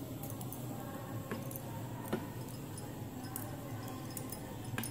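Knitting needles clicking lightly against each other as stitches are worked: a few sparse, irregular ticks over a faint steady hiss.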